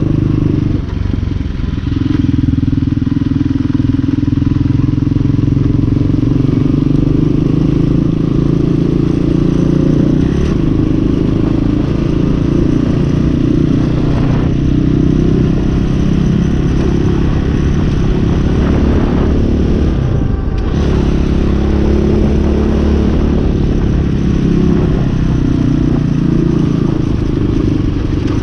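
Hawk 250 dirt bike's single-cylinder four-stroke engine running under way, holding a steady note that shifts in pitch in steps, with a brief break about twenty seconds in.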